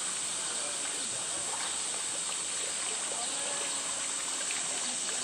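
Steady rush of running water pouring from an outlet in the rock of a polar bear enclosure, with faint voices in the background.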